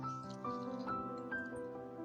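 Instrumental music of a chant-like song: held notes that change about every half second, with no singing.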